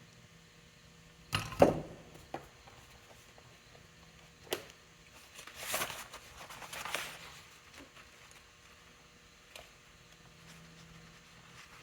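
Workbench handling of small pump parts: a few separate clicks and knocks, the loudest a clunk about a second and a half in, with a stretch of rustling around six to seven seconds in.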